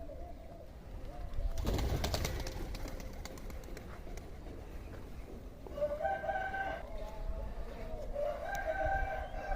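Birds calling in repeated pitched calls, clearest in the second half, with a loud burst of noise about two seconds in.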